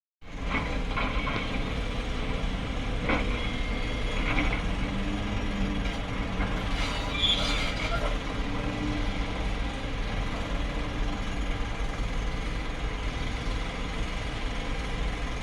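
A large Hitachi ZX870 excavator working, its engine running steadily under scattered metallic clanks and squeals from the machine's steel parts.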